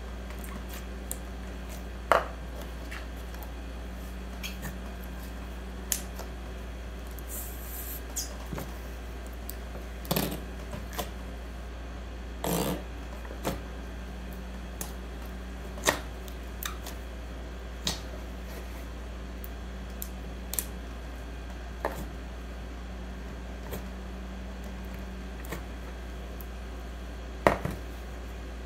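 Sticky honey slime with clay mixed in being kneaded and squeezed by hand, giving scattered sticky pops and clicks every few seconds and a couple of longer squelches, over a steady low hum.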